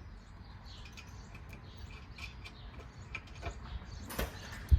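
Small metal clicks and ticks of stainless bolts, washers and nylock nuts being handled and threaded by hand onto a tube door's hinges, with a louder click about four seconds in and a sharp clack at the very end.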